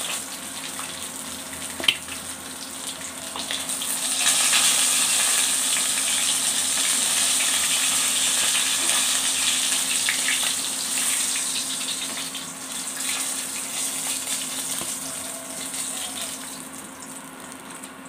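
Fried katla fish pieces sizzling in hot oil in a kadai as they are lifted out with a wooden spatula. The sizzle swells about four seconds in and fades near the end as the pan empties, with one sharp click near the start.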